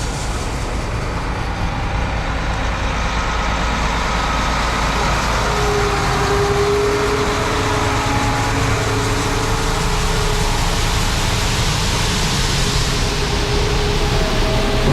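Heavy farm engine running steadily under a broad rushing noise while corn is loaded into a semi trailer, with a faint steady whine coming in about five seconds in.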